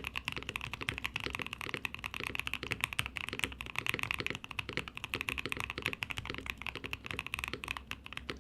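Fast, continuous typing on a custom KBD67 Lite mechanical keyboard with lubed Boba U4T tactile switches and PBT keycaps, a dense unbroken run of keystrokes. Its builder finds the sound still short of the deep thock he was after.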